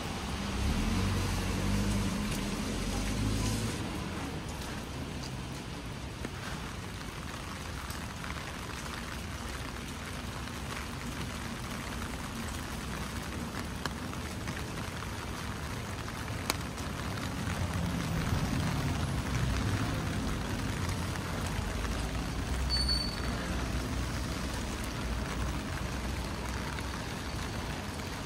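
Steady hiss of rain falling on the street, with motor vehicles passing slowly near the start and again past the middle, their engines low and swelling as they go by.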